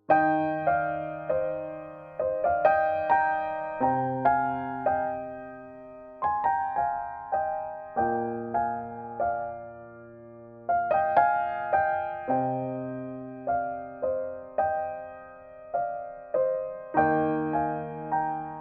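Background music: a gentle piano melody of separate, decaying notes over held bass chords that change every two seconds or so.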